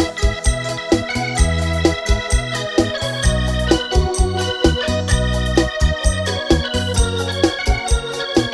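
Instrumental sofrência music: an electronic keyboard playing an organ-like melody over a steady programmed beat and bass, with no singing.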